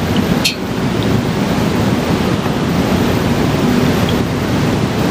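Steady, loud rushing background noise, with a single light click about half a second in.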